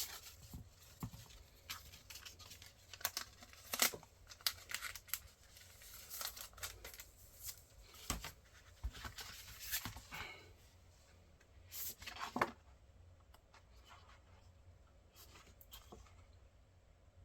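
Paper and plastic packaging being handled and torn open, a run of short crackling rustles and scrapes that dies down to faint handling noise for the last few seconds.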